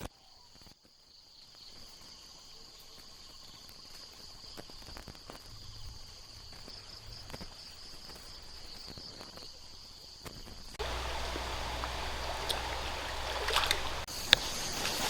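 Insects in the forest making a steady, high-pitched buzzing drone with a faint pulse. About eleven seconds in the sound cuts to a louder rustling, noisy bed, with a few sharp crackles near the end.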